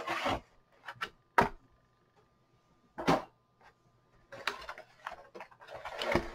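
Unboxing handling noise: a few short knocks and scrapes as a plastic packaging cover and tray are handled, then paper rustling as an instruction sheet is pulled out near the end.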